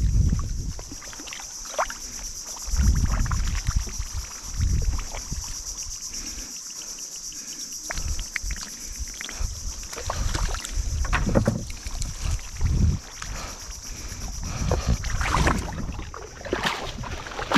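A mesh fishing net being hauled through mud and shallow river water: repeated wet sloshing and splashing swells with scattered clicks from the netting and gear, over a steady high-pitched insect drone.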